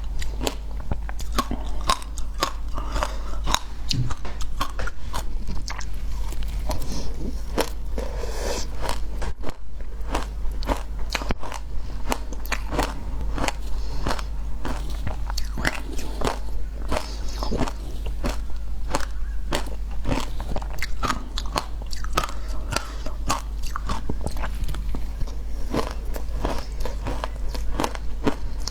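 A person biting and crunching frozen ice close to the microphone, with a dense, irregular run of sharp cracks and crunches and no pause, over a steady low hum.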